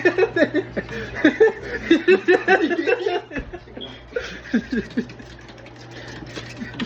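Laughter: a run of quick, repeated chuckles for about three seconds, then a few quieter chuckles trailing off.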